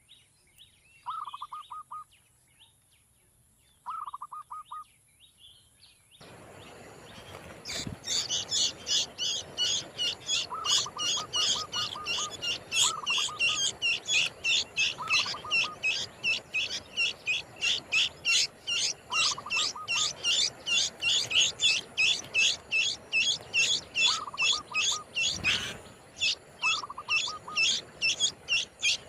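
Small birds calling. In the first seconds three short, lower trilled calls sound over a quiet background. Then the background noise rises, and from about 8 seconds in a rapid, continuous high chirping runs at about three chirps a second, with a few short lower trills and a couple of brief thumps mixed in.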